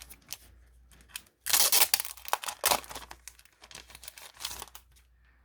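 Rustling and crinkling as a set of postcards is handled and shown, with a run of sharp crackles that is loudest about one and a half to two seconds in.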